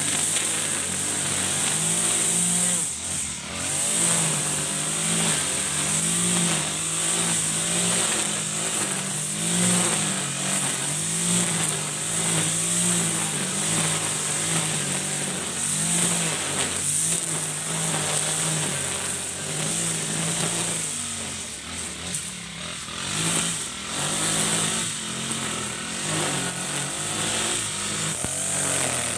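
Ogawa GX35 four-stroke brush cutter engine running at cutting speed while its 2.4 mm nylon line cuts grass. The engine note rises and dips repeatedly as the line takes up load in the grass.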